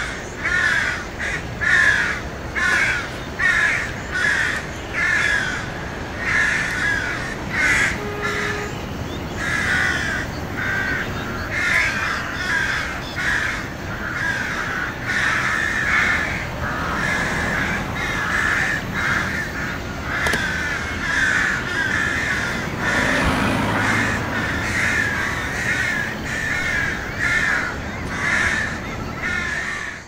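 Crows cawing over and over, about two caws a second, in a continuous run.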